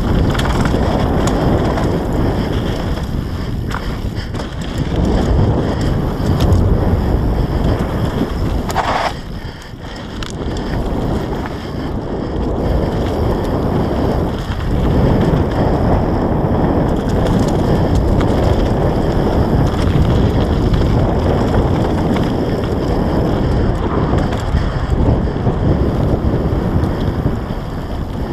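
Wind buffeting the microphone of a camera riding on a mountain bike along a trail, a loud continuous rushing with a short dip about nine seconds in. A brief higher tone sounds just before the dip.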